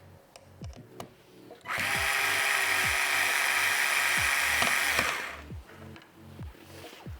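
A small handheld electric tool whirs steadily for about three and a half seconds, starting about two seconds in and fading out. Under it is background music with a deep bass beat that drops in pitch.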